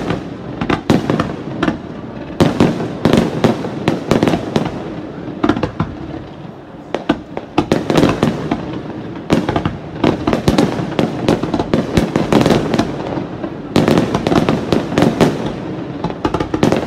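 Aerial firework shells bursting in a rapid barrage, sharp bangs overlapping with crackling. The bursts thin out briefly about six seconds in and come thickest near the end.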